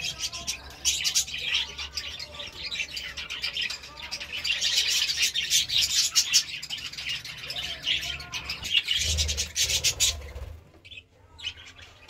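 A flock of budgerigars chirping and chattering in a fast, dense, overlapping stream, with a steady low hum underneath. About ten and a half seconds in it drops away suddenly to a few faint chirps.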